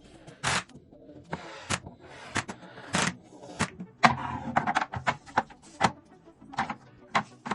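Computer parts being handled and fitted during a PC build: about ten sharp plastic and metal clicks and knocks at irregular intervals, with brief scraping and rustling between them.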